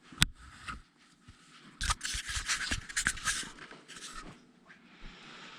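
A shipping package being handled: a sharp click, then rustling and scraping for a second or two, fading to faint handling noise.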